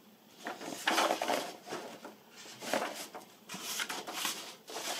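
Paper rustling in irregular bursts as a large printed instruction booklet is handled and turned over.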